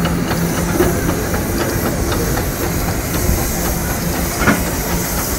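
Steam traction engines and a steam wagon standing in steam: a steady loud hiss of steam with faint regular clicking, a low hum in the first second or so, and one sharper click about four and a half seconds in.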